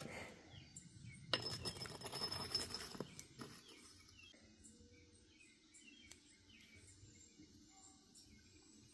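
Metal parts clinking and rattling as they are handled for about two seconds, then faint bird chirps in the background.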